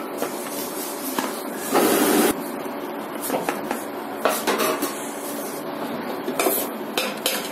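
A plate being handled, with light clinks and knocks, and a short rough crunch about two seconds in as a crisp fried mutton patty is broken open by hand. A faint steady hum sits underneath.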